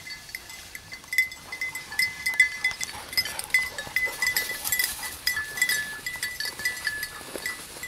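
A hunting dog's collar bell jingling in quick, irregular rings as the dog runs through the cover, with brush rustling around it.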